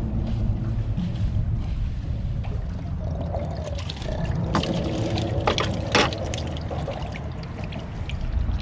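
Water trickling and splashing over a steady low rumble, with a few short sharp splashes or knocks about halfway through.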